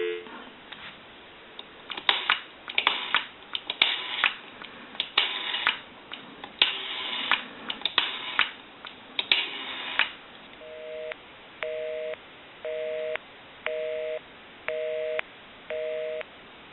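Automatic Electric rotary dial on a candlestick telephone being turned and let run back, its clicks pulsing out a number over about ten seconds. Then a busy signal: a two-tone beep switching on and off about once a second, six times, the sign that the dialled line is engaged.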